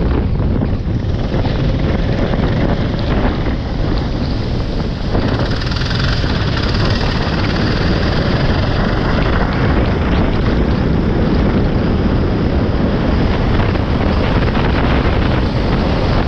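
Wind buffeting an onboard kart-mounted microphone over a go-kart's engine running at speed on a wet track; a steady, dense noise with no clear engine note standing out.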